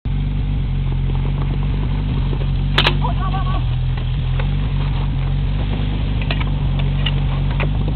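PS-12 portable fire pump engine idling steadily, with a sharp knock about three seconds in and a few metal clicks near the end as suction hoses are coupled to the pump.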